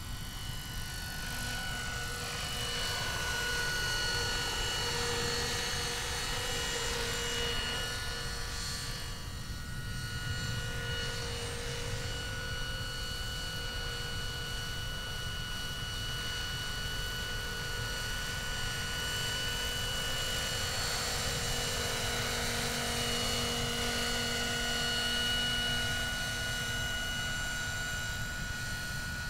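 Minicopter Heli-Baby electric model helicopter, driven by a Plettenberg electric motor, flying: a steady high motor whine over the low rumble of the rotors. The pitch slides slowly up and down as it moves about.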